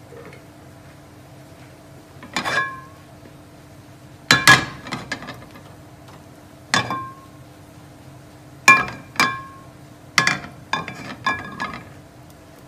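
Metal kitchenware clanking and clinking, about a dozen sharp knocks at irregular intervals, several ringing briefly, over a steady low hum.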